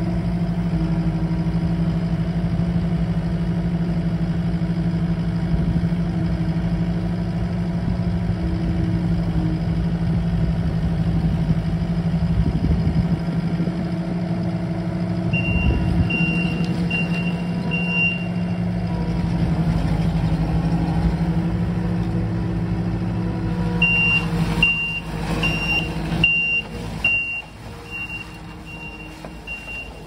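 Takeuchi TL8 compact track loader's diesel engine running steadily, with its backup alarm beeping about twice a second, briefly around halfway through and again through the last six seconds as the machine reverses.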